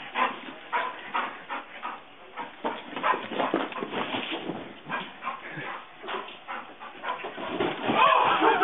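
Bull terrier yipping and barking in play, with short sharp yips coming a few times a second. A person starts laughing near the end.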